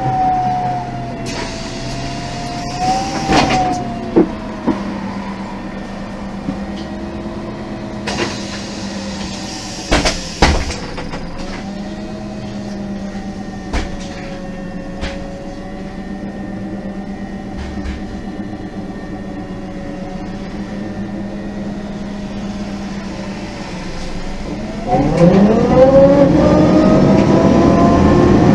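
MAN NG 273 articulated bus's LPG engine heard from on board. It slows down, lets out a few short hisses of air with clicks, then idles steadily. About 25 seconds in it revs up loudly, pitch rising, as the bus pulls away through its Voith automatic gearbox.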